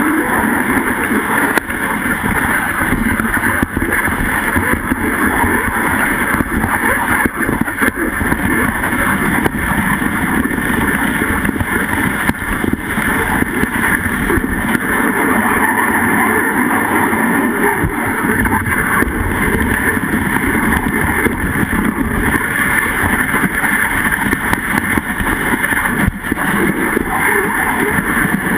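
Dogsled runners sliding uphill over snow: a steady, loud scraping hiss, with wind rumbling on the microphone.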